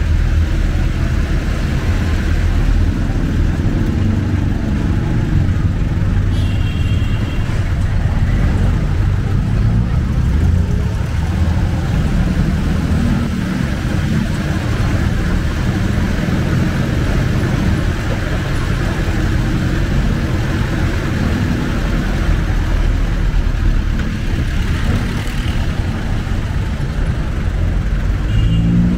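Jeepney's diesel engine and road noise heard from inside the open passenger cabin while riding, a steady low rumble. A brief high-pitched tone cuts through about seven seconds in.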